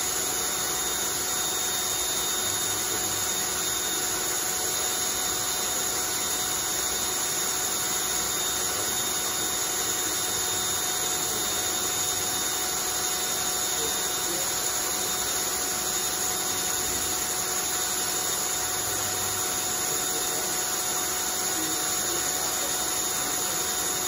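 Cordless drill running at a steady speed, spinning a homemade plywood centrifuge rotor: an even motor whine over a steady hiss, with no change in speed.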